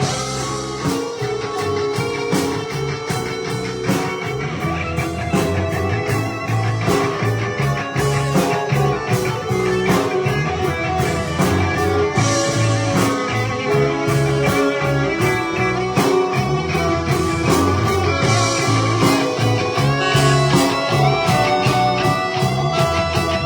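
A rock band playing an instrumental passage, led by guitar over bass and drums.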